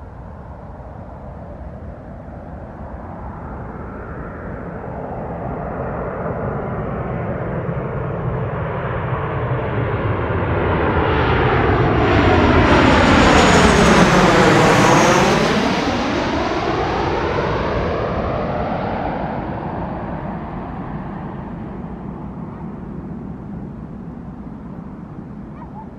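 Twin-engine jet airliner on landing approach passing low overhead. The engine noise grows steadily louder, peaks about halfway through as it passes over, then fades away.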